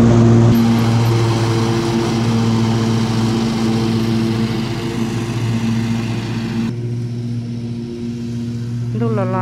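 Cub Cadet RZT L 54-inch zero-turn mower's engine running at a steady, constant speed, a hum with a hiss over it. About two-thirds of the way through the hiss drops away abruptly while the engine hum carries on.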